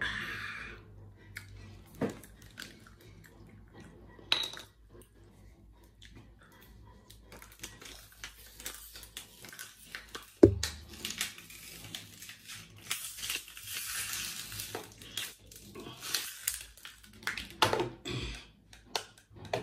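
Close-miked eating-table sounds: a person drinking from a plastic bottle, with scattered clicks and knocks of handling. One sharp thump stands out about halfway through.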